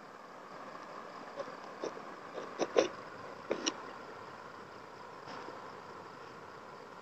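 A few short splashes and sloshes of water as a hand scoop net is pushed through the river shallows, the loudest a little under three seconds in, over a steady faint hiss.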